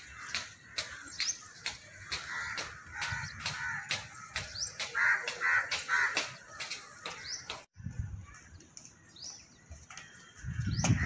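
Crows cawing repeatedly, with small birds chirping high and short. The sound drops out for an instant about two-thirds of the way through.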